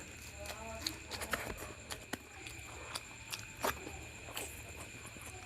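Close-up eating sounds: chewing with irregular sharp mouth clicks and smacks, and a brief pitched hum about half a second in.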